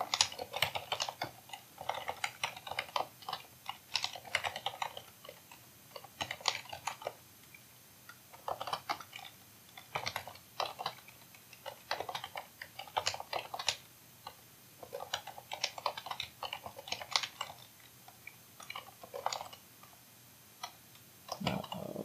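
Typing on a computer keyboard: runs of quick keystrokes broken by short pauses.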